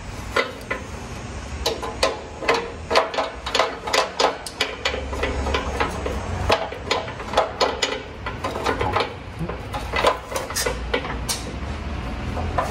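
Metal resonator tubes and pulsator fans of a Deagan vibraharp clanking and rattling as the two resonator sections are handled, turned over and lined up: a busy run of sharp clicks and knocks.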